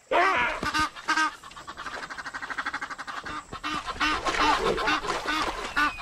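Loud animal calls from a fight between a baboon and a fish eagle: pitched calls that rise and fall, a fast run of short repeated calls in the middle, then more calls near the end.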